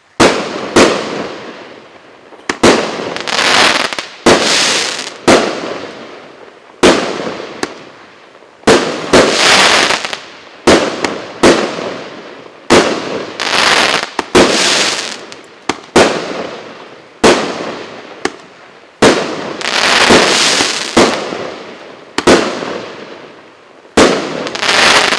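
Russkaya Pirotekhnika RS7079 'Novogodnyaya belochka' firework cake of 19 one-point-one-inch shots firing in quick succession. Sharp bangs come unevenly, about one a second, each trailing off in a fading hiss of sparks.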